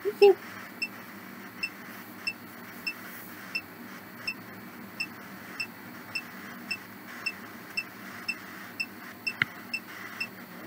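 Ghost box app playing through a device's small speaker: a steady static hiss with short electronic pips repeating a little under twice a second as it sweeps for spirit voices.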